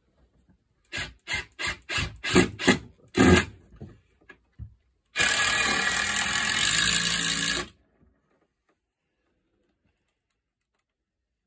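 Timber frame being fixed: about eight sharp knocks in quick succession, then a power tool runs steadily for about two and a half seconds and stops.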